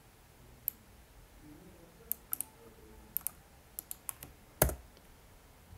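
Clicks from a computer keyboard and mouse: scattered sharp clicks, some in quick pairs, with one louder thump about four and a half seconds in.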